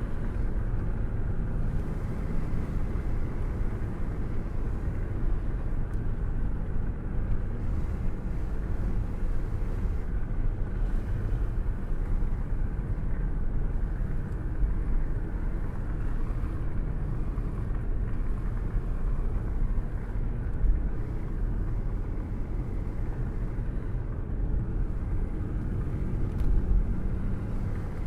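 Rain and thunderstorm: a steady low rumble with only a little hiss on top, and no sharp thunderclaps.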